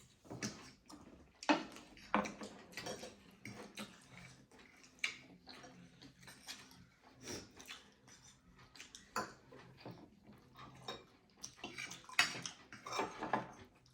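Irregular clinks and scrapes of cutlery against plates and bowls while people eat momos and noodles, with a faint low hum underneath.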